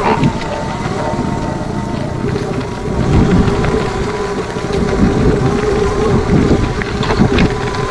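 Sur Ron X electric dirt bike's motor giving a steady whine under way off-road, over a heavy rumble of wind buffeting the microphone and the tyres on rough ground, with a few clicks and knocks.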